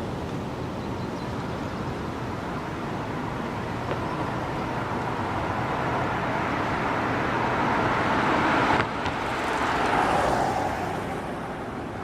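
Road traffic on a bridge: tyre and road noise swells over several seconds, drops off sharply about nine seconds in, then swells and fades again, as vehicles pass. A steady outdoor noise runs underneath.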